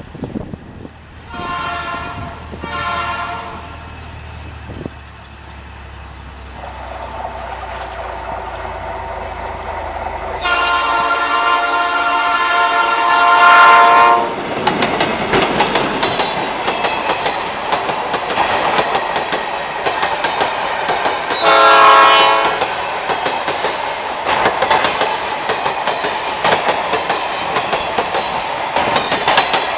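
Freight train with two diesel locomotives approaching and passing. The horn gives two short blasts, then one long blast of about three and a half seconds as the engines grow louder, then another short blast. Empty steel-coil wagons roll by with a clickety-clack of wheels over the rail joints.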